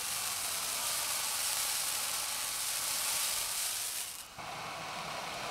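Ground fountain firework spraying sparks with a steady hiss. About four seconds in, the hiss briefly drops away as one stage burns down, then picks up again with a duller sound as the next spray starts.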